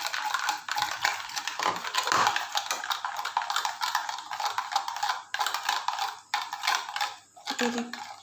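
A metal spoon beating eggs in a bowl: fast, continuous clinking and scraping of the spoon against the bowl, thinning out and stopping near the end.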